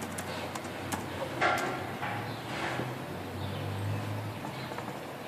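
A few light clicks on a laptop in the first second, then a brief louder rustle about a second and a half in, over a low steady hum.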